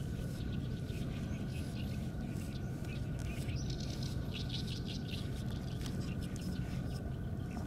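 Outdoor background: a steady low drone with a faint steady whine over it, and scattered short high chirps and scratches.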